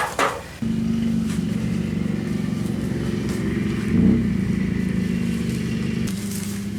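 An engine or motor running steadily with a low hum. It starts suddenly about half a second in and swells briefly about four seconds in.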